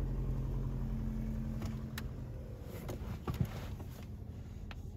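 An engine idling: a low, steady hum that weakens about three seconds in, with a couple of light clicks.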